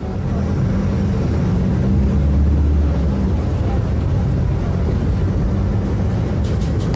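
City bus engine drone heard from inside the bus as it pulls away and accelerates, loudest about two to three seconds in, with a few short rattling clicks near the end.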